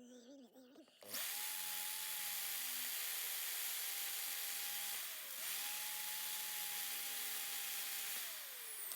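Power drill spinning a cheap drill-bit sharpener, grinding the steel of a blunt drill bit. The motor spins up about a second in with a steady whine over a hiss of grinding. Its pitch dips briefly about halfway and recovers, then it winds down near the end.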